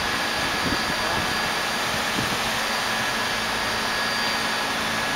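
R68 subway train standing at the station, its ventilation and auxiliary machinery giving a steady hiss with a faint high whine.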